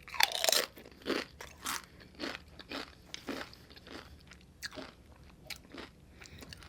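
Close-miked chewing of a mouthful of food, with crisp crunching, in a steady run of about two chews a second. The loudest crunch comes about half a second in.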